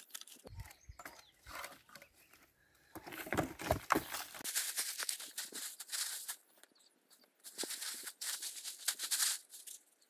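Crinkling of a large plastic sack and crunching of dry leaves and twigs as the sack is handled and dragged over dry ground, in irregular bursts with a couple of quiet gaps. Some low thumps or rumbles come in between.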